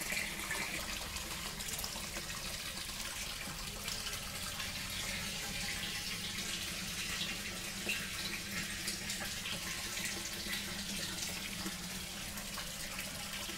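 Water rushing and splashing steadily into a fish-hatchery tank, with a low steady hum underneath.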